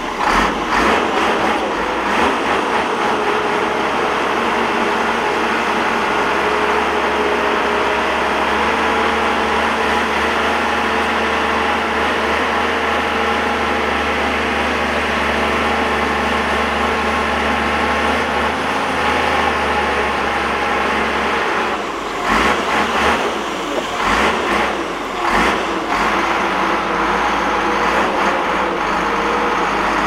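Heavy diesel engines of a Shantui crawler bulldozer and a loaded dump truck running steadily under load as the dozer pushes the truck out of soft ground. A burst of knocks and clanks comes about three-quarters of the way through.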